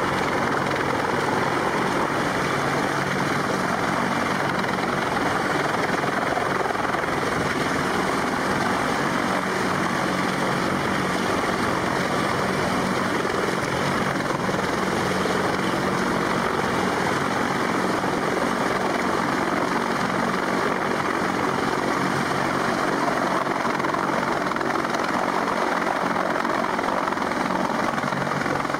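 Marine Corps CH-53 heavy-lift helicopter hovering low overhead with a sling load line beneath it, its rotor noise loud and steady.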